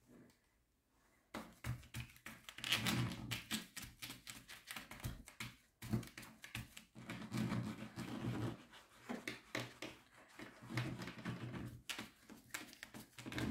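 Applicator tip of a sealer bottle dabbed and rubbed over the small resin drills of a diamond painting: dense runs of small taps and clicks with soft scraping, starting about a second in.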